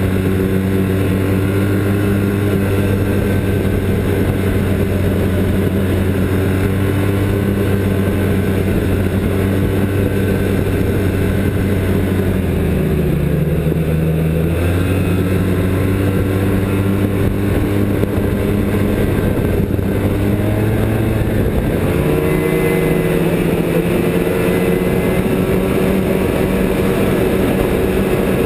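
Snowmobile engine running steadily at trail speed. About halfway through, the revs drop for a couple of seconds and climb back. A little over two-thirds through, the engine note changes abruptly to a different machine's pitch.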